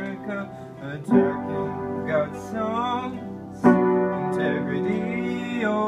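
Upright piano played with both hands: full chords struck about a second in and again a little past halfway, ringing on between them.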